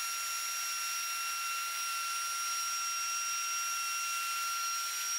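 Festool plunge router running steadily, its 16 mm bit cutting a shallow first pass, about 2 mm deep, of a groove in veneered plywood along a guide rail. It sounds like a steady high whine over a hiss.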